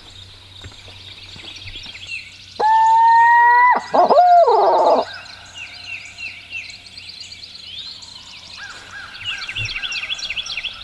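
Owl locator call blown in barred-owl style: two loud hoots about two and a half seconds in, the first held steady for about a second, the second wavering and trailing downward. Used to make gobblers answer. Songbirds chirp throughout.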